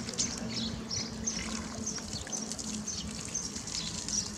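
Outdoor ambience: short high chirps repeating irregularly, over a steady low hum and a faint background hiss.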